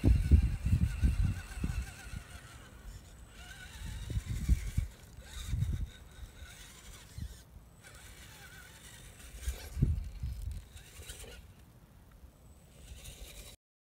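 Wind gusting on the microphone in low, buffeting bursts, strongest at the start, around four to six seconds and around ten seconds in. Under it runs the faint whine of an electric RC rock crawler's motor. The sound cuts out abruptly near the end.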